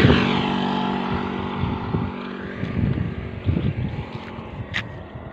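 A passing motor vehicle's engine, loudest at the start and fading steadily as it moves away.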